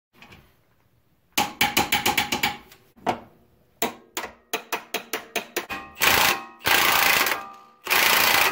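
A hand ratchet clicking, first in a quick run and then in slower single strokes, tightening a suspension bolt. Then a cordless impact wrench hammers in three short bursts, the last near the end, driving the front axle nut tight.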